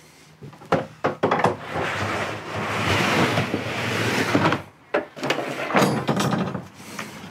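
Rubbermaid plastic storage bin dragged along a pickup's ribbed bed liner toward the tailgate: a few knocks, then a scrape lasting about three seconds, then more knocks near the end.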